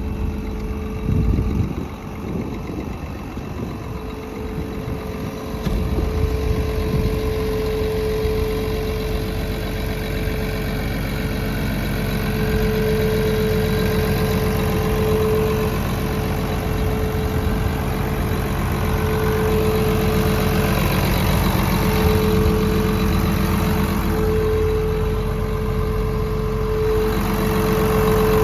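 John Deere 950J crawler dozer's Liebherr diesel engine running steadily with a continuous hum, growing louder about six seconds in.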